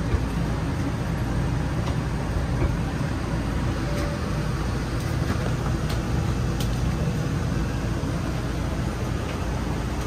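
Hydraulic slide-out system of a Forest River Sandpiper fifth-wheel camper running steadily as the slides extend, with a few light clanks from the window blinds shaking.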